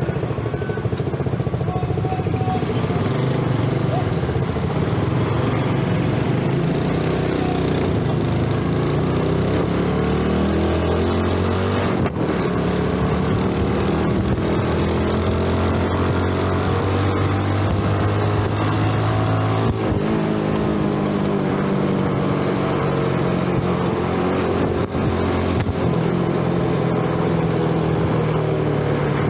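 Single-cylinder engine of a Yamaha underbone motorcycle running while riding, heard from the rider's seat with wind and road noise. The engine pitch climbs steadily for about ten seconds as the bike accelerates, then drops about twenty seconds in as the throttle eases.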